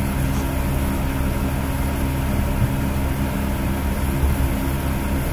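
Steady low hum with a faint hiss, no change or events: constant background noise from a running machine or electrical source.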